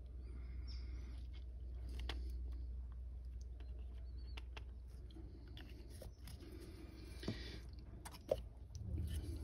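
Faint handling noises of a small paint bottle and a paintbrush: light clicks and rustles, with a sharper click about seven seconds in and another about a second later, over a low steady hum.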